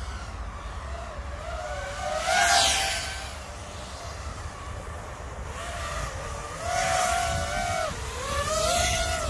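FPV drone flying fast, its motors and propellers whining and bending up and down in pitch with the throttle. It sweeps close past three times, loudest about two and a half seconds in, then again near seven and nine seconds.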